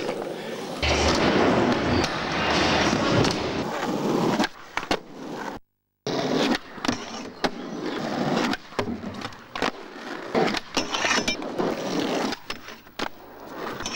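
Skateboard wheels rolling loudly on a plywood ramp. After a brief dropout comes a run of sharp board clacks from tricks and landings, with the wheels rolling on asphalt in between.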